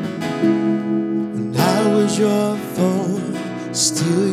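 Live worship music: acoustic guitar strumming with sustained keyboard chords, and a singer coming in about one and a half seconds in with wordless, sliding vocal runs.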